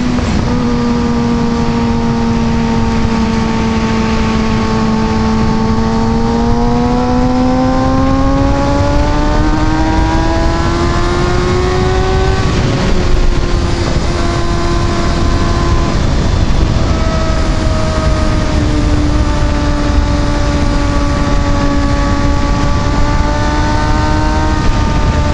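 Kawasaki ZX-6R 636 inline-four engine running at high revs under load, heard from the rider's camera over heavy wind rush. The engine note climbs steadily for several seconds and drops sharply as he shifts up about halfway through, then slowly sags as the bike holds speed.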